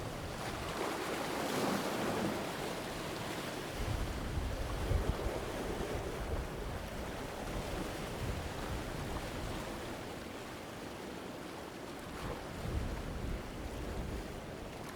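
Medium sea waves breaking and washing over rocks, a steady surf noise that swells about two seconds in, with low rumbles from wind on the microphone.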